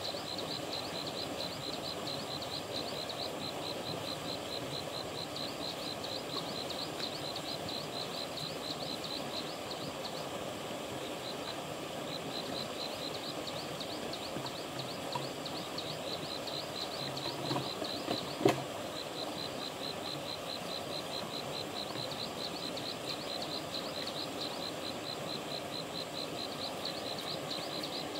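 Stream water running steadily, with a high chirping repeated about four times a second and a sharp knock about two-thirds of the way through.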